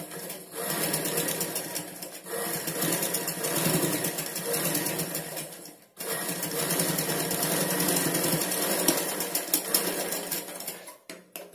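Black domestic sewing machine stitching a seam through blouse fabric, running in a fast, steady rattle of needle strokes. It breaks briefly about six seconds in, starts again, and slows to scattered ticks near the end.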